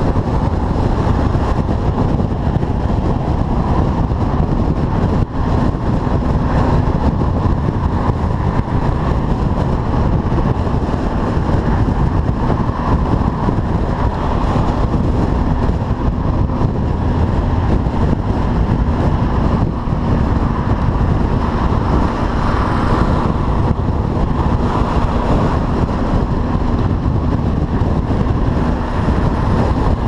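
Motorcycle cruising at motorway speed, heard from on the bike: a steady rush of wind buffeting the microphone over the engine and road noise.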